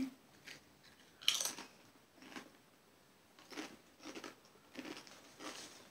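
A Doritos tortilla chip bitten with a sharp crunch about a second in, then chewed with several softer crunches.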